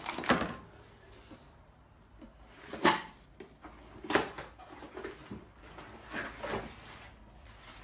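Cardboard boxes and packaging being handled, with several short knocks and rustles: one near the start, one about three seconds in, one about a second later, and two close together near the end.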